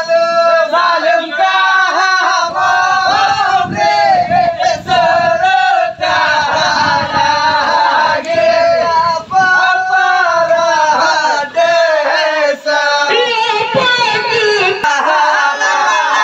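Seudati dance accompaniment: a male voice singing and chanting through a microphone, joined by the dancers' shouted chanting, with rhythmic body percussion from the dancers (claps, snaps, chest slaps and stamps), densest in the first half.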